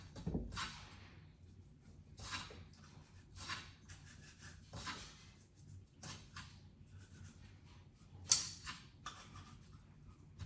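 Hands working seasoning into raw fish: a string of short, irregular wet swishes and rubs, with one sharper stroke about eight seconds in.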